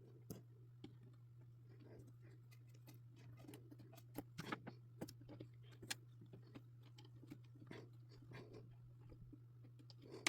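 Faint, scattered small clicks and scratches of a jumper wire being handled and pushed into a solderless breadboard, over a steady low hum.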